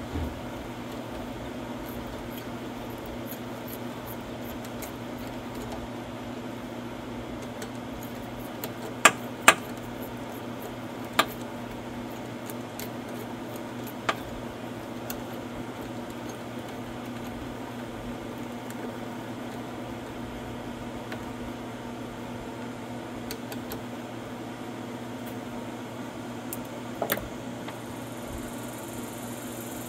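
A few sharp clicks and clinks from hand work on a Craftsman push mower's engine: two close together about nine seconds in, single ones a little later and a double click near the end, over a steady low hum.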